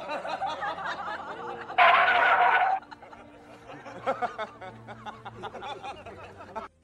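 Human laughter, snickering and chuckling, with a louder burst of laughter about two seconds in that lasts about a second.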